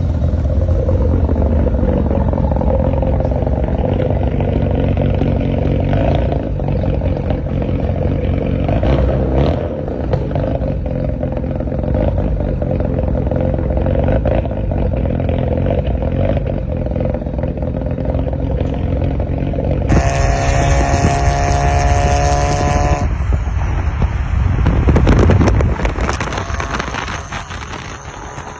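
Mazda RX-7 rotary engine idling through its exhaust, a steady, uneven brap-brap. The sound changes character abruptly about 20 seconds in and again about 23 seconds in, and swells briefly in level near 25 seconds.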